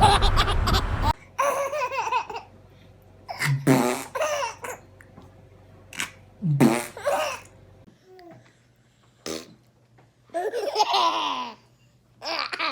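Short bursts of a baby farting, mixed with laughter and baby babbling, with quiet gaps between them.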